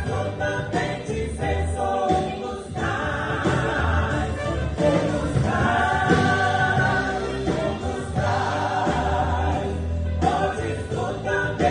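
A church orchestra and congregational choir performing a gospel hymn, voices singing together over sustained instruments and a steady bass.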